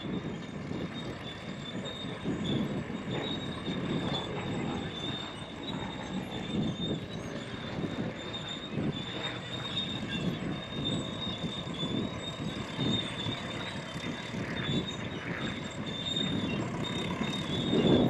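Tracked crawler tractor running, its steel tracks squealing steadily and clanking irregularly.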